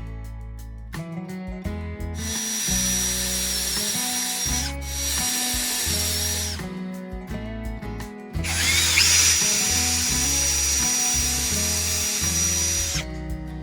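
A power tool runs with a steady high whine, working wood in two spells of a few seconds each, the second longer, over background music.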